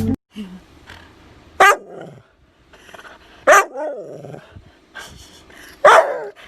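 A dog barks three times, about two seconds apart.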